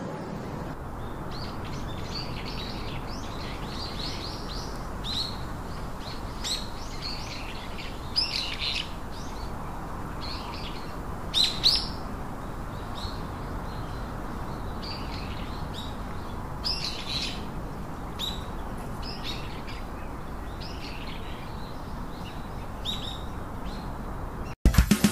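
Small birds chirping: short, high calls come irregularly over a steady background hiss, and the loudest calls fall about eight and eleven and a half seconds in. Music with drums starts abruptly at the very end.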